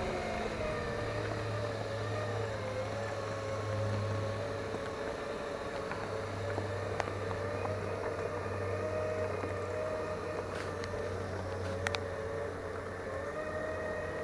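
Segway personal transporter's electric drive whining steadily as it rides along, the pitch wavering slightly with speed, over a low hum, with a few faint clicks.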